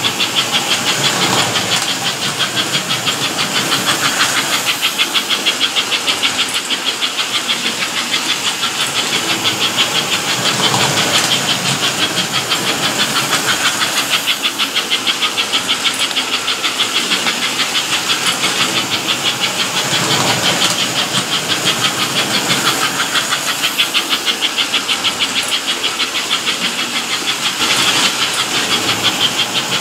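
American Flyer S-gauge model trains running on tinplate track: a steady mechanical whirr and rattle of motors and wheels with a fast, even pulsing hiss, swelling a few times as a train passes close.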